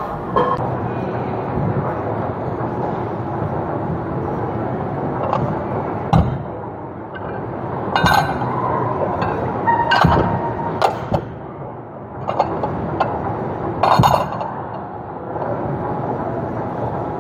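Weight-room ambience: a steady background hum broken by several sharp metallic clanks of iron weights, the loudest about halfway through and again near the end.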